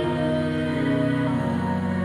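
Ambient background music of long held tones.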